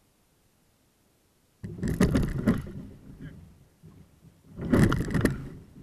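Kayak paddle strokes: two loud splashing strokes about three seconds apart, the first about a second and a half in.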